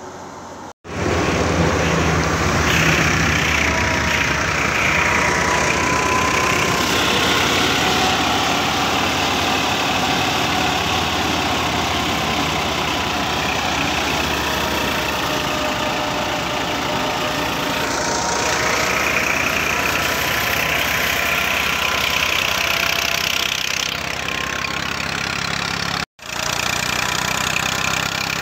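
A tractor-driven wheat thresher running steadily: the tractor's engine turns the thresher through its shaft while the machine blows out straw and chaff, making one continuous loud mechanical noise. The sound cuts out for an instant about a second in and again near the end.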